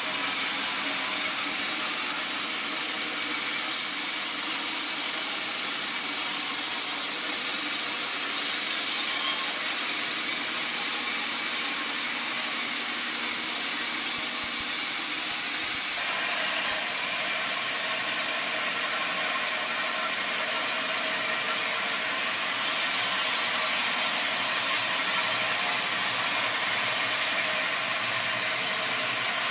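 Sawmill machinery running with a steady mechanical drone, its tone shifting slightly about halfway through.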